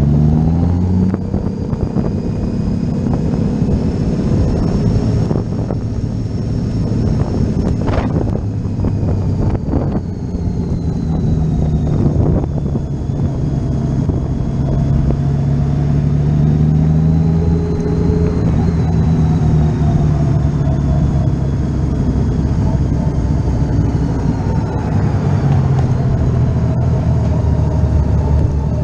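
Honda Valkyrie motorcycle's flat-six engine running under way. The engine note climbs about a second in, then settles and holds fairly steady.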